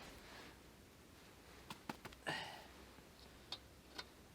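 Faint scattered clicks and taps from handling a small oil lantern just filled with lamp oil, with a short vocal sound about two seconds in.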